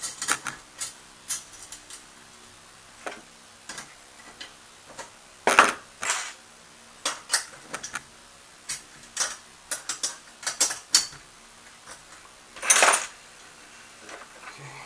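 Metal plates, threaded rods and nuts of an HHO dry-cell stack clinking and knocking as they are handled and fitted together: irregular light clicks, with louder clanks about five and a half and six seconds in and a longer scraping clatter near the end.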